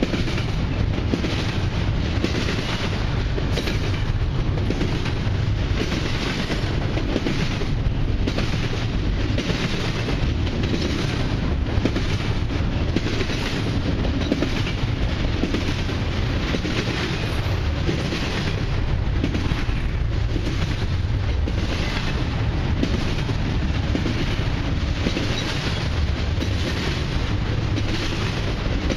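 Double-stack intermodal freight cars rolling past at close range: a steady loud rumble of steel wheels on rail, with regular clickety-clack of the wheels.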